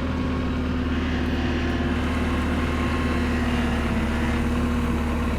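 Vehicle engine running steadily at low revs, an even drone with a steady hum.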